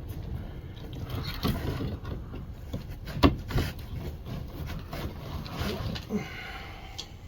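Scattered clicks, knocks and clatter of tools and parts being handled, with one sharp knock a little over three seconds in.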